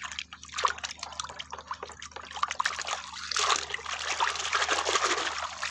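Water splashing and trickling as a toy is washed by hand, with irregular sloshes that grow busier about halfway through.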